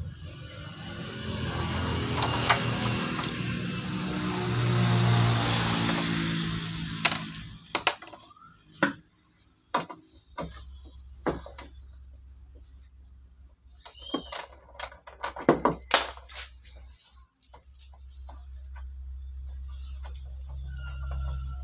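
A vehicle passes, its rumble swelling and fading over the first several seconds. Then scattered sharp metal clinks and knocks of a hand tool and fittings against a Toyota Kijang's radiator as it is unbolted, with a low hum building near the end.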